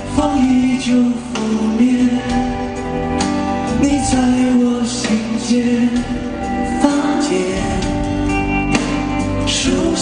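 Live pop song: a male singer's voice over band accompaniment, heard through a concert sound system.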